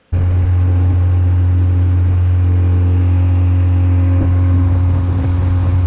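Boat motor running at a steady speed: a loud, even, low hum that starts abruptly and does not change.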